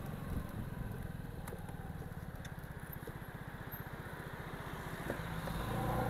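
Vespa Primavera scooter's engine running under way, a steady low putter. Near the end it grows louder, with a clearer engine tone.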